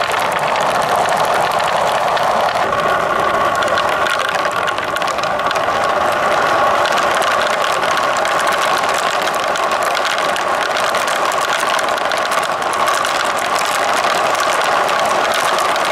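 Many marbles rolling down plastic rain-gutter and wooden marble-run tracks: a steady rolling rumble thick with small clicks and clatters as the balls knock together and against the track.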